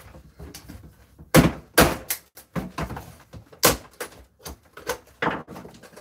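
Hard knocks and thuds from a microwave oven's door and parts being handled and banged on a workbench while being stripped by hand: about six sharp impacts, the two loudest about a second and a half and nearly four seconds in.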